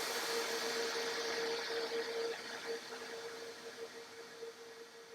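Workshop machine noise fading away: a steady rushing whir dies down over several seconds while a steady hum continues underneath.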